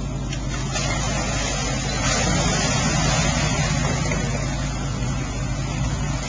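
V8 Range Rover engine running steadily under load as the 4x4 drives through a mud hole, with mud and water splashing. It gets a little louder about two seconds in.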